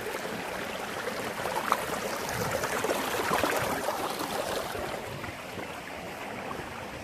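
Shallow stream running and babbling over stones, growing louder for a few seconds in the middle and then easing off.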